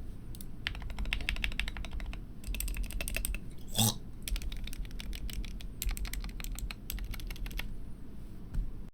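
Typing on a GK61 60% optical keyboard fitted with lubed Gateron Yellow linear switches: quick runs of keystrokes with short pauses, and one louder, deeper key strike a little under four seconds in.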